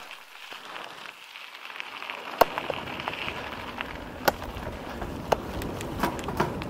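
Mountain bike riding down a rough, stony trail: tyres crunching over gravel with sharp knocks and rattles. It grows louder from about two and a half seconds in, as a low rumble fills in.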